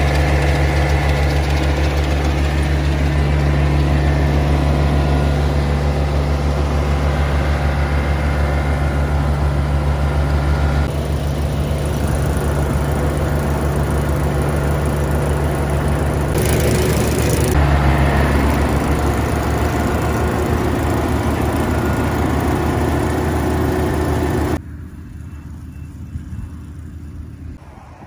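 Yanmar rice combine harvester running close by, a loud steady engine hum mixed with the noise of its working machinery. Near the end the sound drops suddenly to much quieter wind noise on the microphone, with the harvester far off.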